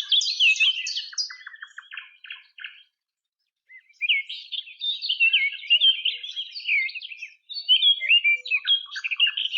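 Small songbird singing: quick runs of high chirps and twitters, a first phrase fading out after about three seconds, then after a short pause a longer, denser phrase.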